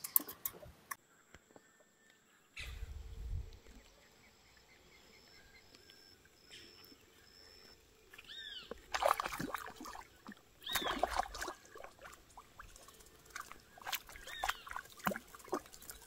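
Wild animal calls in the open: a row of about five short, evenly spaced high notes, then three separate arched calls a few seconds apart, among brief bursts of noise.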